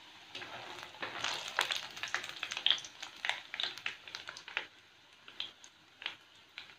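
Macaroni deep-frying in hot oil in an aluminium pan, crackling and sizzling with many sharp pops. The pops come thickest in the first few seconds and thin out near the end.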